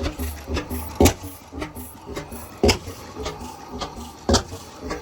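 Bovaird & Seyfang oil field engine running slowly. It gives a heavy single thump about every one and a half seconds, three in all, over a low steady rumble.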